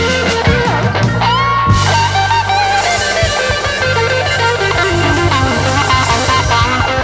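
Background music: a rock track with guitar and drums.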